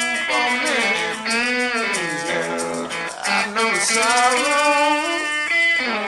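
Background music: a song with guitar and a singing voice.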